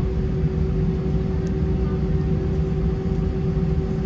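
Steady cabin drone inside an Airbus A319 with its IAE V2500 engines running on the ground: a low rumble with a constant mid-pitched hum over it.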